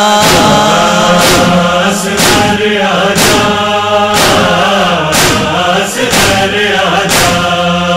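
Male voices chanting a noha, an Urdu mourning lament, in long wordless tones over a steady low drone, with a beat about once a second.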